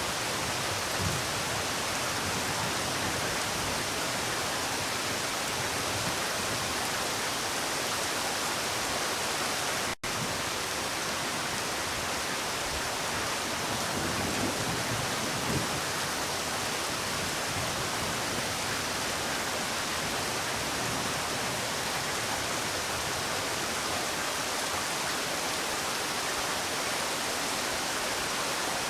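Steady rain falling, an even hiss without letup, with a split-second dropout about ten seconds in.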